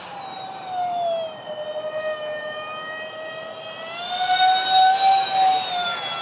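Freewing Su-35 model jet's twin electric ducted fans whining in flight. The pitch dips a little about a second in, then climbs again around four seconds in, where the whine is loudest, and falls back near the end.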